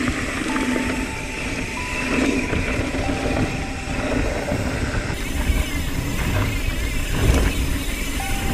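Mountain bike rolling fast down a dirt forest trail: tyre rumble and rattling of the bike, with wind buffeting the handlebar-mounted camera's microphone. The sound changes abruptly about five seconds in as it switches to a second rider's camera.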